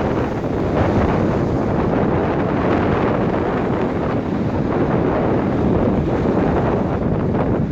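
Strong wind buffeting the microphone: loud, steady rumbling noise, heaviest in the low end.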